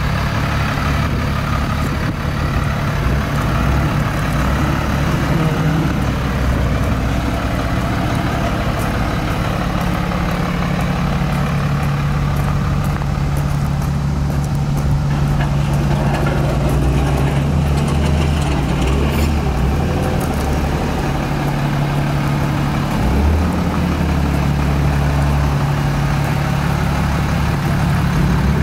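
A 2001 Freightliner FL80 dump truck's Cummins ISC inline-six diesel idling steadily.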